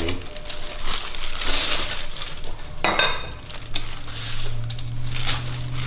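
Thin-walled steel bicycle tubes clinking and knocking against each other and the workbench as they are handled, with a rustle of their wrapping. One sharper, ringing metal clink about three seconds in.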